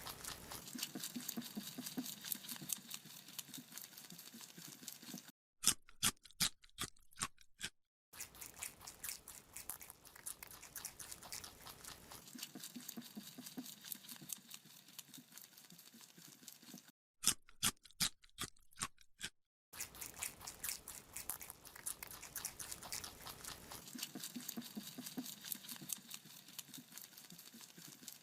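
Rabbit chewing a carrot: a fast, steady run of small crunches, broken twice by stretches of fewer, louder, sharper crunching bites.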